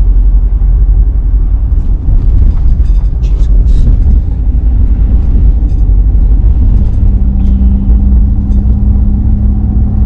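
Road noise inside a moving car: a steady low rumble from the car's tyres and engine, with a steady hum joining about seven seconds in.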